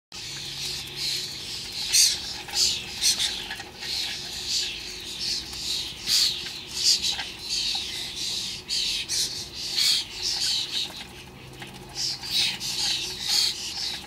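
Juvenile common starlings giving repeated harsh, rasping calls, short and irregular, sometimes several in a second.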